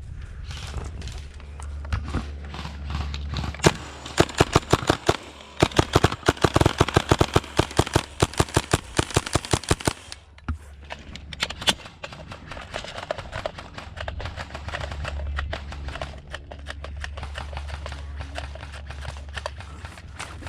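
Airsoft rifle firing a long run of rapid shots, about six a second, followed by scattered single shots.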